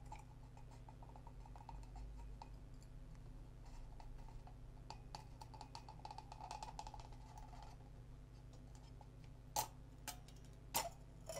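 Glass envelope of an EMI 9902KB photomultiplier tube being slid off its metal electrode assembly by hand: faint scraping and rubbing of glass on metal, then a few sharp clicks of glass knocking near the end.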